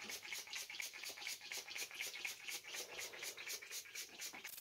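Small hand-pump spray bottle spritzing raw cauliflower florets on a baking sheet: a quick, steady run of short hisses, about five a second.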